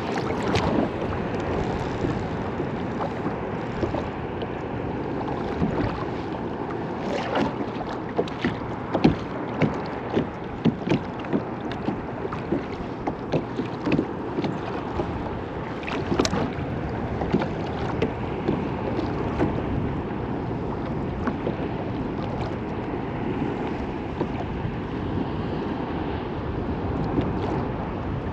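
Water slapping and lapping against a kayak hull in a building swell, with wind on the microphone and scattered sharp knocks and clicks, densest in the middle.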